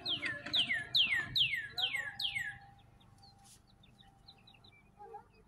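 A songbird sings a run of about six clear whistled notes, each sliding steeply down in pitch, roughly two a second, then stops about halfway through. Fainter chirps from other birds follow.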